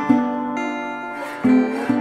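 Background music: an acoustic guitar strumming a few ringing chords.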